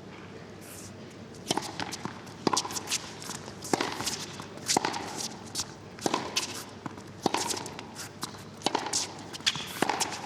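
Tennis rally: racket strikes on the ball about once a second, eight or so sharp hits back and forth, with the ball's bounces and players' footsteps on the court between them.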